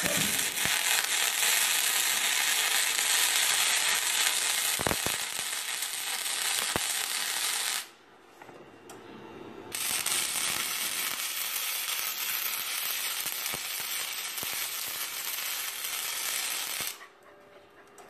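Gasless flux-cored MIG welding arc from a Qingshui MIG200i welder, crackling steadily in two runs: it stops about eight seconds in and strikes again about two seconds later, for about seven seconds more.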